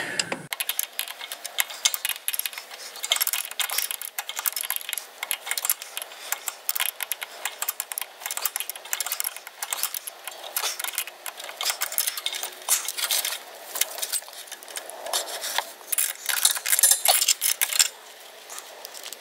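Irregular light metallic clinks and ticks of a hand wrench working a 15 mm bolt loose a little at a time, just above a lawn tractor's transaxle pulley, with metal knocking on metal.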